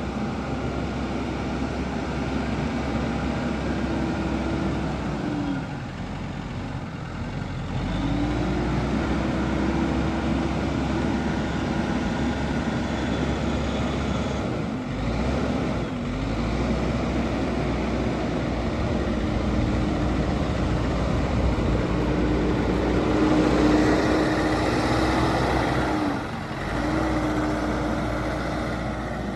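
JCB 215E backhoe loader's diesel engine running at working speed. Its note briefly pulls down in pitch and recovers three times.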